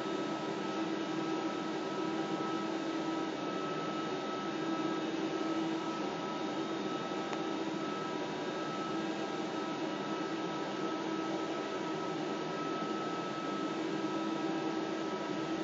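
Fanuc M-6iB industrial robot and its servo drives: a steady machine hum with a thin high whine over an even hiss as the arm moves, the low hum swelling slightly now and then.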